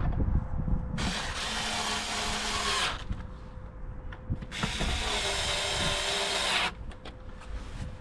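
Cordless screwdriver running in two bursts of about two seconds each, driving in the T25 screws of the air filter housing cover.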